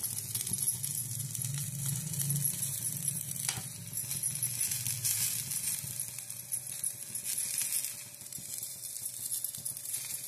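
Ghee sizzling on a hot tawa as a steel spoon spreads it over a paratha, with a light tap of the spoon about three and a half seconds in.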